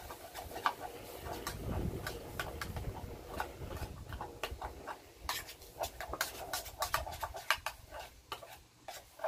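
Mexican rice and Spam crackling and popping as they cook in a canteen cup over a stove, in irregular sharp pops that come thicker in the second half. A low rumble under them fades about halfway through.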